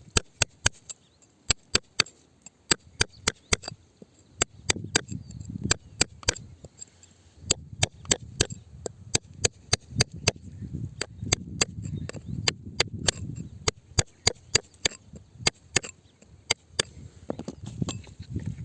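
A hand digging tool striking rock over and over: sharp knocks about two or three a second, irregularly spaced, with lower scraping and crumbling of loose rock and dirt between the strikes.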